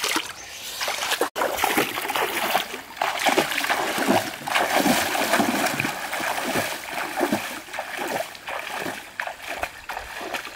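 Water splashing and sloshing in a rapid, irregular run of short splashes, broken by a brief dropout about a second in.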